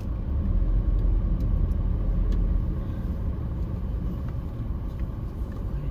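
Camper van driving on the road: a steady low rumble of engine and tyres, with a few faint ticks.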